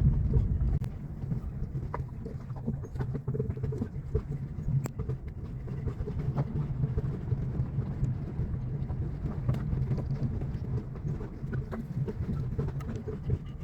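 Car driving slowly over a rough, stony dirt road, heard from inside the cabin: a steady low rumble from engine and tyres, with scattered small knocks and rattles.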